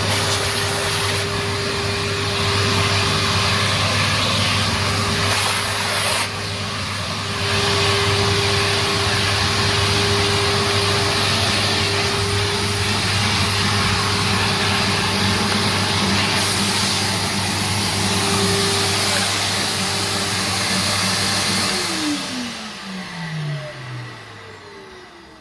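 Numatic NTD570 vacuum cleaner running steadily, its airflow hiss swelling and easing a few times. About 22 seconds in it is switched off and the motor winds down with a falling whine that fades out.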